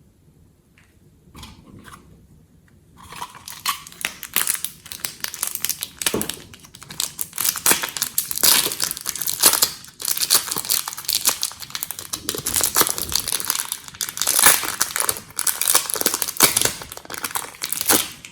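Glossy slime being squeezed, stretched and folded by hand, giving dense, irregular crackling and popping. It starts about three seconds in after a few faint clicks and comes in surges.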